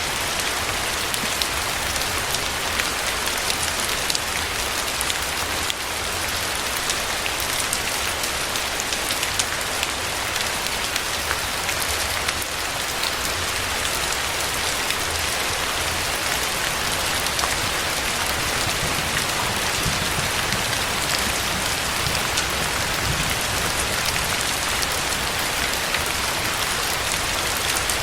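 Steady rain falling, a dense even hiss with many small drop impacts ticking through it.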